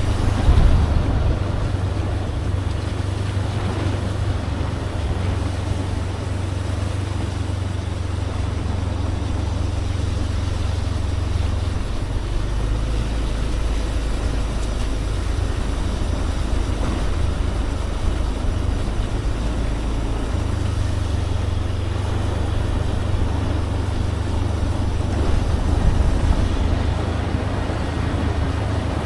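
Motorbike ride on a road: a steady low engine and wind rumble with a light hiss of road noise, the low rumble shifting about twelve seconds in and again about twenty seconds in.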